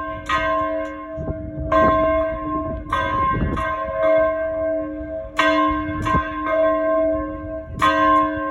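A single church tower bell rung by hand, struck about five times at an uneven pace of one stroke every one and a half to two seconds. Each stroke rings on with a steady hum that overlaps the next.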